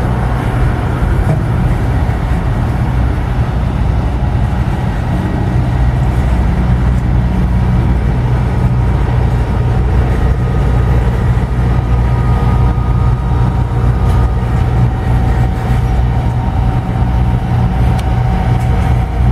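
Freight train of Tropicana refrigerated boxcars rolling past: a loud, steady rumble of steel wheels on rail, with a few faint high tones held for several seconds in the middle.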